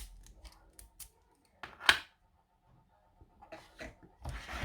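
Small metallic clicks and scrapes as a tiny padlock is handled and set into a bench vise, with one louder scrape about two seconds in.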